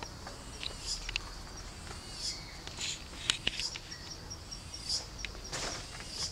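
An insect chirping in a faint, even, high-pitched pulse, with scattered sharp clicks and rustles over it, the sharpest click about three seconds in.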